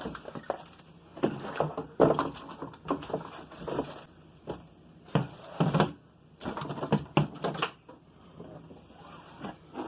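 Boxed product packaging being handled and unpacked by hand: irregular rustling, scraping and light knocks, with a few sharper handling knocks about two seconds and five to six seconds in.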